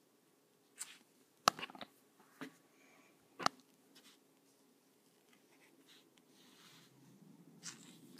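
Fine-tip Micron ink pen scratching across drawing paper while lining, with a few sharp clicks, the loudest about a second and a half in and again a couple of seconds later.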